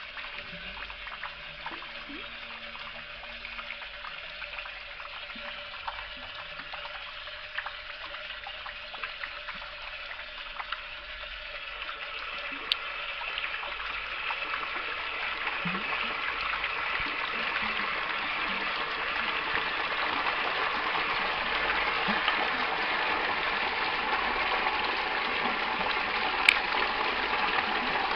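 Water from an outdoor tap splashing into a basin of water. About halfway through, the tap is opened further and the rush of water grows steadily louder. Two sharp clicks stand out above it.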